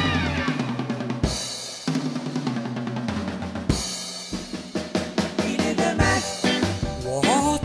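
Rock drum kit playing a break of snare, bass drum and cymbal hits, with held low electric bass notes coming and going underneath. A sliding pitched note comes in near the end.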